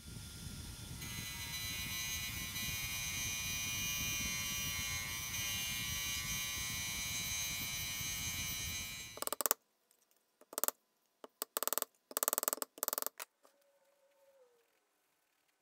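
Bench grinder running with a threaded steel shaft held against its wheel: a steady motor hum with a high rasp of metal on the wheel, which cuts off suddenly about nine seconds in. A few short bursts of noise follow.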